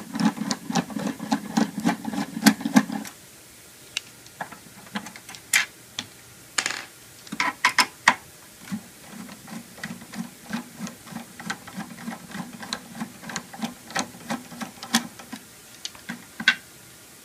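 Screwdriver backing out the screws of a Macintosh SE's plastic back case: runs of quick, even clicks as it turns, with a few louder knocks and taps in between as it is moved from screw to screw.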